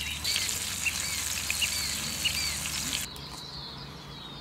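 Flounder frying in a cast iron skillet over a fire, a steady sizzle, with small birds chirping. About three seconds in the sizzle cuts off abruptly and only fainter bird chirps remain.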